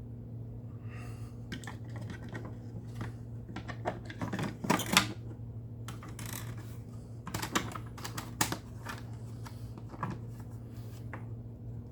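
Plastic parts of an upright vacuum cleaner being handled: scattered clicks, taps and rustles as a gasket is pulled out and the back panel is refitted, over a low steady hum.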